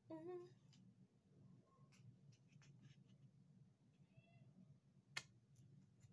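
Quiet handling of tarot cards on a wooden table: a few faint clicks and taps as a card is laid down, with one sharp click about five seconds in, over a low steady hum.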